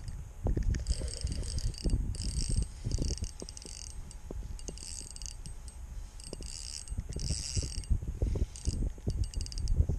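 Spinning reel being cranked in short spurts, its gears whirring with each run of turns, as line is reeled in against a fish on the bent rod. Low knocks of handling come in between.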